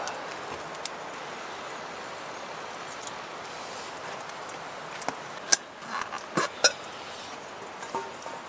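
A few sharp metallic clinks and knocks of camp cookware being handled while stew is served, grouped about five to seven seconds in, over a steady rushing hiss.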